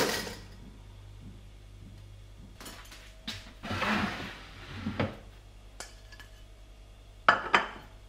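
A pop-up toaster springs up with a sharp metallic clack and a short ring. About four seconds in, a wooden cutting board scrapes as it is slid across the worktop. Near the end, a ceramic plate is set down on the counter with two quick clacks.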